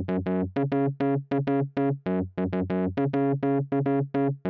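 Upbeat keyboard background music: short chords struck about four to five times a second over a steady bass line.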